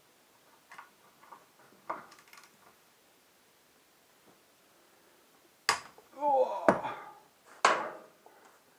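Metal hand tools clinking and clattering, a few light clicks at first, then a louder burst of sharp knocks with brief ringing in the second half.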